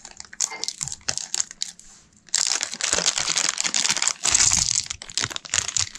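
Thin clear plastic bag of blue plastic game chips crinkling as it is pulled open by hand. Softer at first, then loud, dense crinkling from about two seconds in.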